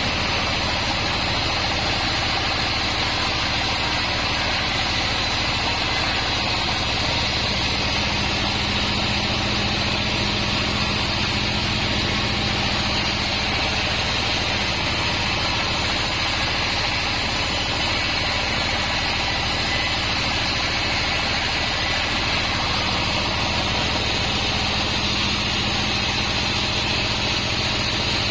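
A 36-inch band sawmill machine running steadily, its motor and blade giving an even mechanical hum with a steady high hiss.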